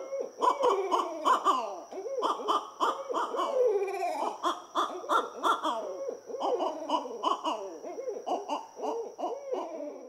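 Several barred owls caterwauling back and forth: a dense, overlapping chorus of wild hoots and cackles that swoop up and down in pitch. This is the excited display barred owls give in courtship and territorial disputes.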